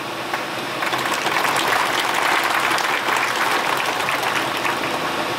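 A large crowd clapping, picking up about a second in and going on steadily.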